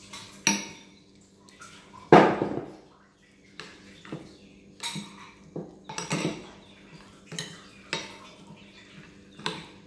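Metal spoon clinking and scraping against a glass bowl while mixing noodles, a dozen or so irregular clinks, the loudest about two seconds in.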